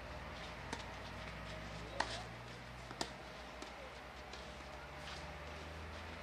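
Tennis ball struck by rackets in a rally: a few sharp pops about a second apart, the loudest about two seconds in, over a steady low hum.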